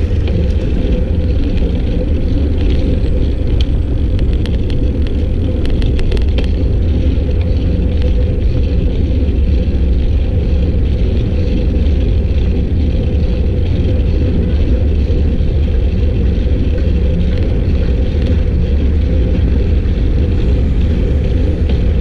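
Steady deep rumble of wind on the microphone while cycling, with a scatter of faint clicks a few seconds in.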